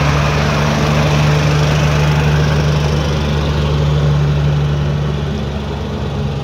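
Diesel engine of a heavy construction machine running steadily close by, holding an even pitch.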